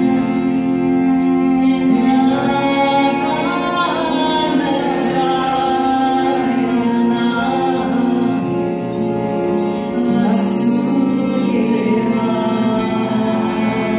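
Live kirtan music: a mantra sung over a steady drone, with sitar and bowed cello.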